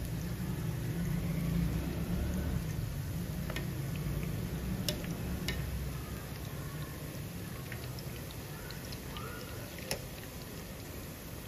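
Onion pakoras deep-frying in hot oil: a steady sizzle. There are a few sharp clicks, and a wire spider skimmer is moving through the fritters in the pan.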